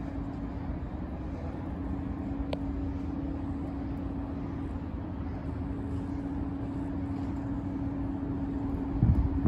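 A steady low mechanical drone with a constant hum, and a short burst of louder low rumble near the end.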